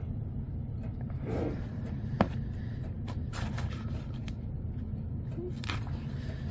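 Magazine pages being handled and turned by hand: short paper rustles and a sharp click about two seconds in, over a steady low hum.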